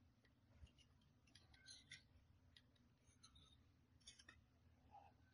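Near silence with scattered faint paper clicks and rustles from folded 3D origami paper units being handled and pushed into place.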